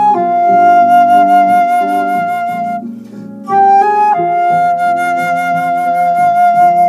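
Flute playing a slow pasillo melody: a long held note with light vibrato, a short breath, a few quick rising notes, then another long held note. Softer low accompaniment notes run underneath.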